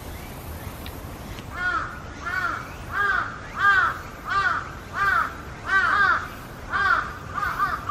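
A crow cawing over and over, beginning about a second and a half in at roughly one and a half caws a second; near the end the caws come quicker and shorter.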